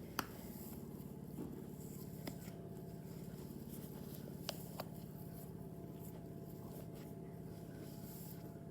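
Slime being mixed by hand: a few faint, sharp sticky clicks and pops over a steady low hum.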